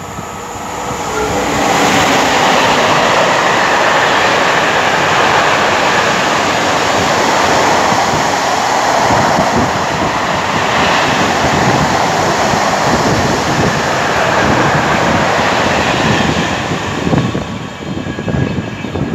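A Class 66 diesel locomotive hauling a container freight train at speed: the sound builds over the first couple of seconds into a loud, steady rush of wheels and wagons on the rails, which eases and becomes uneven near the end as the train draws away.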